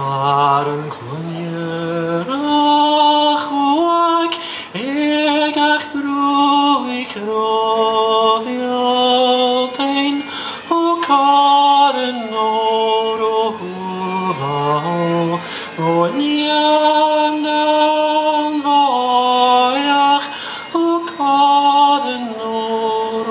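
A man singing a Scottish Gaelic song solo and unaccompanied, in long held notes that slide from one note to the next.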